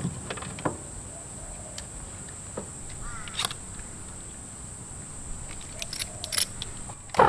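A steady high insect drone, like crickets or cicadas, under scattered clicks and rattles from the compressor's air hose and gauge fittings being handled. A louder run of clicks comes near the end, and a loud steady sound cuts in at the very end.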